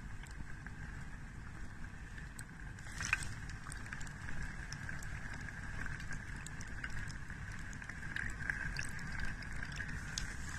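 Chicken deep-frying in a deep fryer: hot oil bubbling and crackling, with many small pops and one louder crack about three seconds in, over a steady low rumble.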